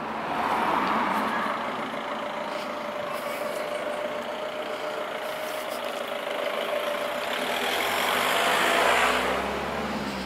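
A motor vehicle's engine running on the street, growing louder about half a second in and again near the end, with road noise.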